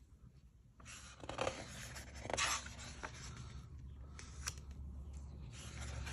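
Pages of a large hardcover book being handled and turned by hand: paper rustling and sliding, starting about a second in, with louder swishes around one and a half and two and a half seconds in and a few light ticks.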